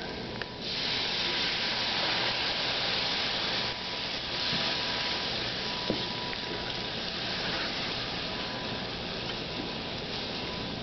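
Cold milk being poured into a hot skillet of crumbled sausage and flour roux, sizzling as it hits the pan. The sizzle swells about half a second in, then eases a little after a few seconds and carries on steadily.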